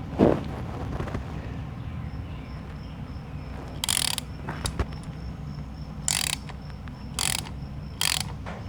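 Thread tap being turned by hand into a metal engine-mount hole, lubricated with WD-40: several short, high-pitched rasping squeaks of the tap cutting metal, most of them in the second half.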